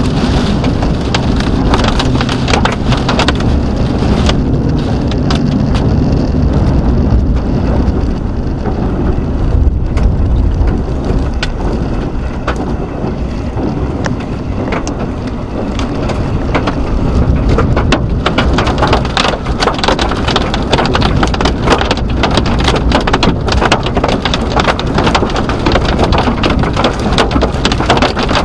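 Severe supercell winds and rain hitting a moving vehicle, heard from inside: a heavy, steady low rumble of wind and road noise with rain striking the body and glass in dense sharp taps, which grow thicker over the second half.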